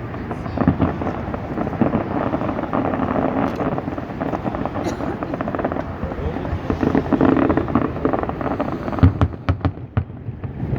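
A large crowd of spectators chattering while fireworks go off, with a quick run of sharp bangs near the end.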